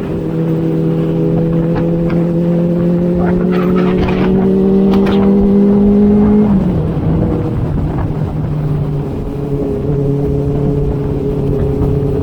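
Inline-four sport motorcycle engine pulling under throttle, its pitch climbing steadily, then an upshift about six and a half seconds in drops the revs before it pulls on again. Wind rush on the microphone underneath.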